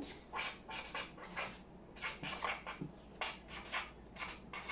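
Felt-tip marker writing on a sheet of paper: a run of short, faint scratchy strokes, roughly two or three a second, as letters are drawn.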